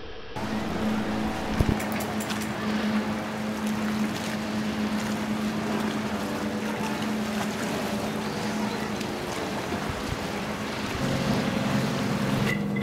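A boat's motor running with a steady hum, with wind and water noise around it. A second, lower hum joins near the end.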